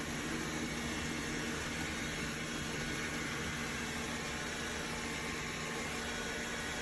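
Steady whirring hiss of a Dreame L10s Ultra robot vacuum's suction fan and motors running, with a faint low hum and no change in pitch or level.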